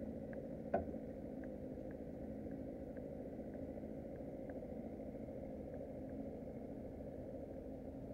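A boat engine idling steadily, with one sharp click about a second in and faint light ticks through the first half.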